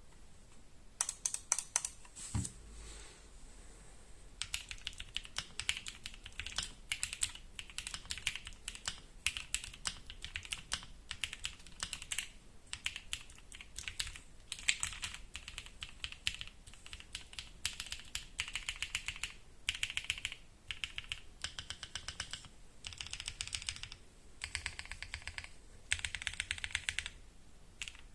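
Typing on an Akko x Monsgeek M1 mechanical keyboard with a polycarbonate plate, lubed Gazzew Boba LT linear switches and black PBT keycaps, modded with full foam, tape mod and lubed stabilisers. Runs of quick keystrokes with short pauses between them.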